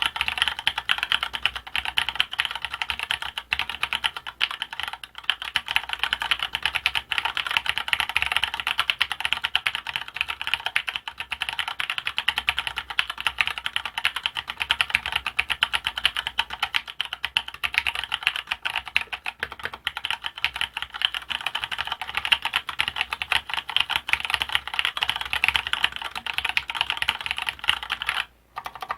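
Continuous fast typing on a custom mechanical keyboard with old-type Cherry MX Brown tactile switches: a dense, even run of key clacks, broken by a short pause near the end.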